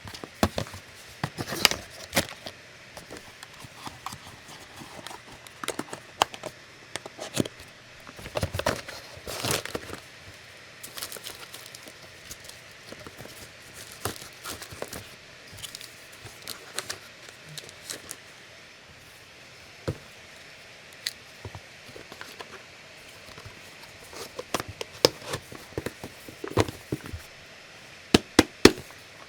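Hands handling packaging and small parts: irregular crinkling and rustling with scattered sharp clicks and taps, several in quick succession near the end.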